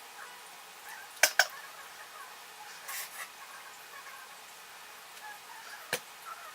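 Faint steady hiss broken by a few sharp clicks: two close together about a second in, a softer rustle a little later, and one more near the end.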